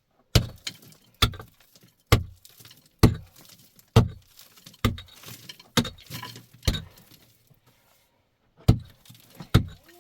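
A series of sharp, heavy knocks at an even pace of about one a second: eight in a row, a pause of about two seconds, then two more near the end.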